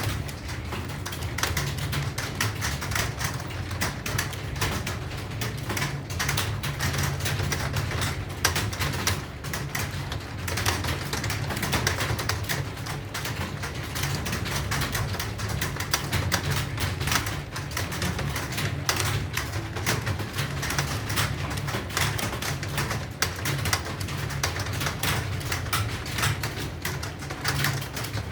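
Fast, continuous typing on an Acer computer keyboard, a dense run of key clicks that goes on without a break, over a steady low hum.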